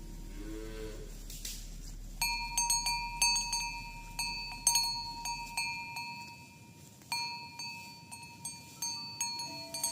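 A metal bell hung on a walking cow clanking in uneven strokes, several a second, each strike ringing with the same bright tones; the clanking starts about two seconds in and thins out briefly in the middle.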